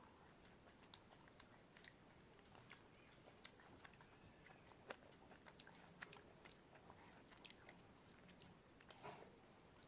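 Faint chewing: soft, irregular mouth clicks and smacks of a person eating, with a slightly louder cluster near the end.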